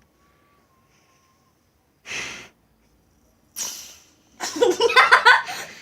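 Two short sneeze-like puffs of breath through the nose, about a second and a half apart, then giggling laughter starting near the end.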